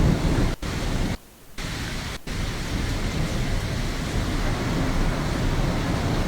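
Heavy rain pouring down in a steady hiss, picked up by a phone's microphone. The sound drops out briefly three times in the first couple of seconds, once for about half a second, where the footage is cut.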